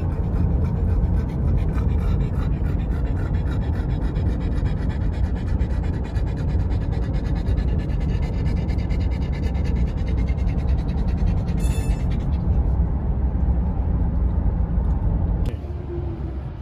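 Steady low rumble of a moving car heard from inside the cabin: road and engine noise with rubbing from the phone being handled. It drops off sharply near the end.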